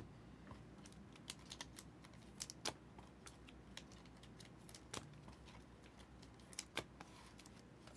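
Trading cards being handled and flipped through: faint, irregular light clicks and snaps, a dozen or so.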